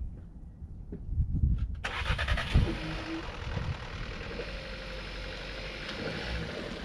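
A car engine cranking and starting about two seconds in, then idling steadily.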